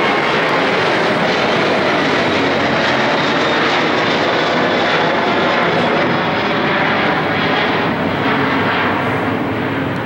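Boeing 737-700's CFM56 turbofan engines roaring steadily as the airliner flies overhead, easing slightly near the end.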